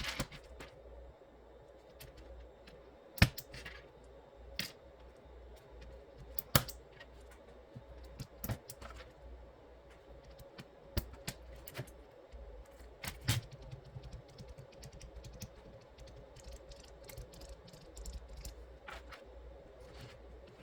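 Scattered, irregular plastic clicks and clacks from handling an aigo A108 mechanical keyboard during a switch swap, a few of them sharper and louder, over a faint steady hum.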